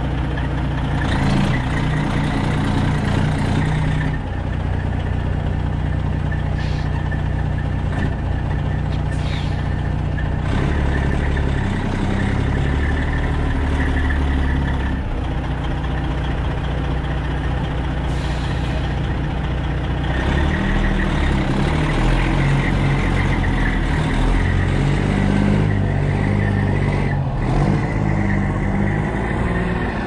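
Semi truck's diesel engine running under load as the tractor pulls its tanker trailer forward over packed snow, the engine note shifting up and down several times.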